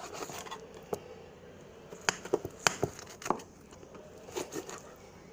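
Kitchen knife chopping on a cutting board: sharp, irregular knocks, a single one about a second in, then a quick run of several in the middle and a couple more near the end.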